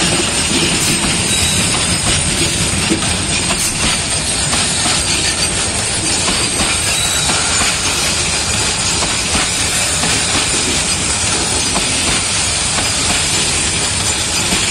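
Metre-gauge goods train of covered wagons rolling slowly past close by, its wheels clattering steadily over the rails with a continuous rumble; the train is heavily loaded, which is why it runs slowly.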